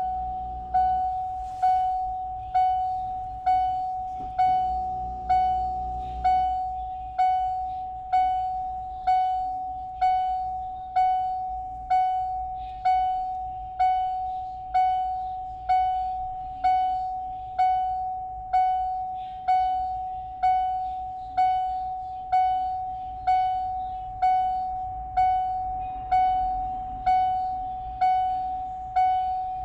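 The 1993 Ford Explorer's warning chime, with the ignition on and the engine not running, sounds over and over. It is a single bell-like tone struck a little more than once a second, each strike fading quickly.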